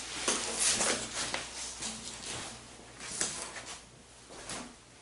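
Rustling and bumping noises of a person getting up out of a fabric folding camp chair, loudest in the first second and a half, with a few softer bumps later.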